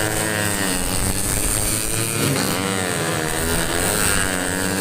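Several tuned 150 cc four-stroke underbone racing motorcycles running hard at high revs, their overlapping engine notes rising and falling as they accelerate, shift and pass.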